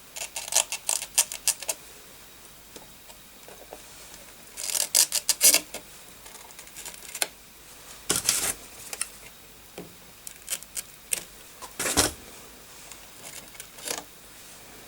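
Irregular clusters of short sharp clicks and taps as hand tools work on a circuit board to pull off a soldered plastic connector. The loudest knocks come about eight and twelve seconds in.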